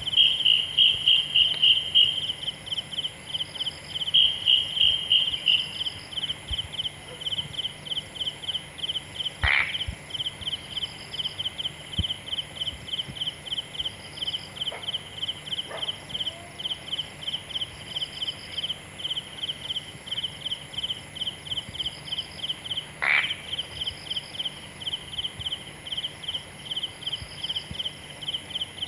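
Night insects chirping in a steady, pulsing rhythm a few times a second, over a fainter high, steady hiss. Two brief sharp sounds cut in, about a third and about three-quarters of the way through.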